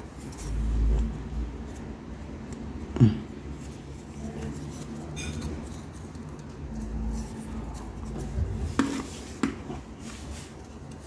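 A rubber wiper refill being forced by hand through the channel of a rear windscreen wiper blade: rubbing and handling sounds, with a sharp click about three seconds in and a few more clicks near the end.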